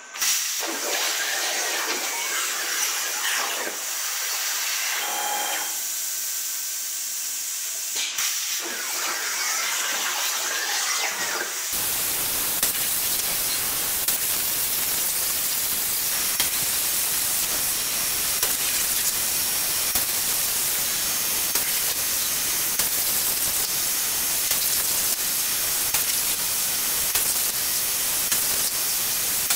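Unimig Razor Cut 45 plasma cutter on a CNC table firing its torch and cutting 3 mm aluminium plate: the arc starts suddenly, then a steady loud hiss of the plasma arc and air, with faint gliding tones from the moving gantry. About twelve seconds in, the hiss turns denser and fuller.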